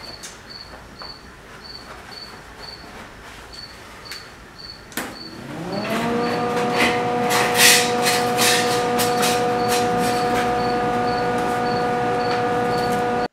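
A click, then a wire-feed welder's hum that rises in pitch for about a second and holds steady, with crackling for a few seconds after it comes up, while a sheet-metal patch is tack-welded into a door.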